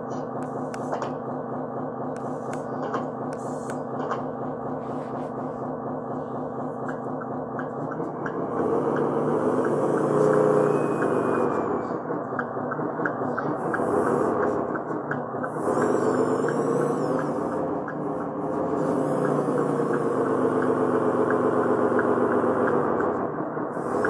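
Radio-controlled CAT 140H grader's engine sound, a diesel-like drone that idles steadily, then from about 8 seconds in grows louder and rises and falls several times as the grader drives.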